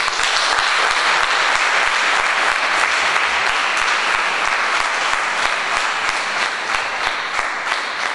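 Audience applauding: dense clapping that starts suddenly, then thins a little near the end so that single claps stand out.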